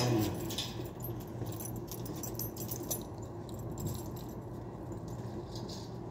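Light clicks and jingling rattles from things being handled, with a louder knock right at the start, over a steady low hum.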